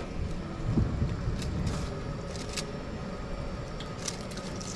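Tap water running into a stainless-steel sink as a gutted scorpionfish is washed, with a few light clicks as a bamboo sasara brush scrubs the blood out along its backbone.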